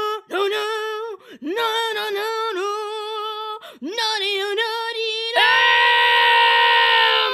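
A single voice singing one high note, held in long phrases with a slight wobble and short breaks between them. About five seconds in it switches to a louder, brighter sustained note.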